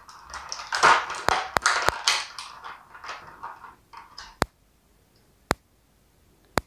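Clear plastic blister packaging crinkling and rustling as tiny plastic toy food pieces are lifted out of it, for about three seconds. Then a few single sharp clicks about a second apart, small plastic pieces being set down.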